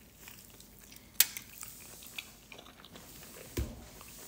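A person biting into and chewing a soft flour-tortilla breakfast burrito: quiet, irregular wet mouth clicks, with one sharp click about a second in and a short low thump near the end.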